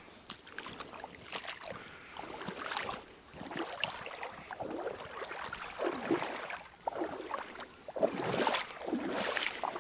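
Footsteps wading through shallow floodwater and wet grass: an irregular run of swishing, sloshing steps that grow louder toward the end.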